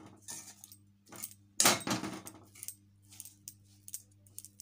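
Metal spatula scraping and stirring mashed bitter gourd in a metal kadhai: a series of short scrapes, the loudest about a second and a half in, over a low steady hum.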